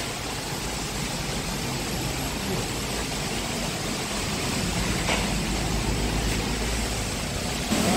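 Steady rumbling background noise, with a single short click about five seconds in.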